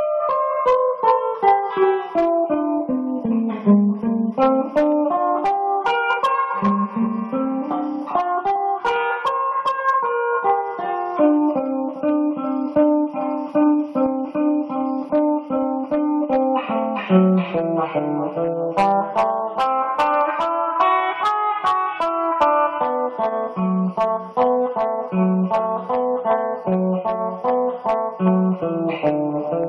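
Solo guitar played without singing: a run of plucked notes falls in pitch over the first few seconds, then picked patterns over a repeated low bass note.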